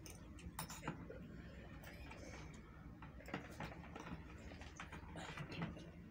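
Eating sounds of instant noodles: scattered clicks of metal forks against plastic bowls, and slurping.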